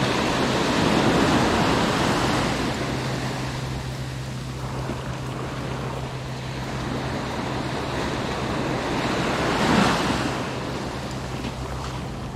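Small waves breaking and washing up a sandy beach, the surf swelling about a second in and again, loudest, near ten seconds.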